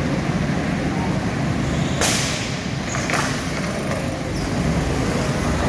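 Go-karts running on an indoor track: a steady engine drone, with two short hisses about two and three seconds in.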